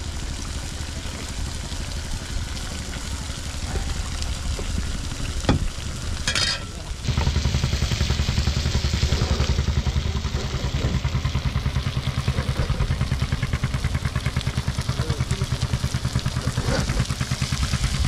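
Fish and greens sizzling as they fry in oil in a pan, with an engine running under it in an even low pulse that gets louder about seven seconds in. A single knock about five seconds in.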